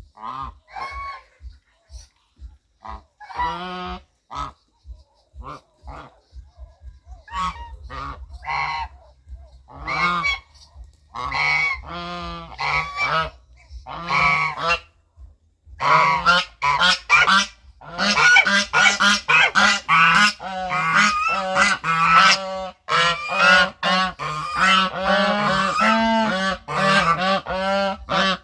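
Geese honking. Scattered single honks come first; about halfway in they give way to a dense run of quick, overlapping honks.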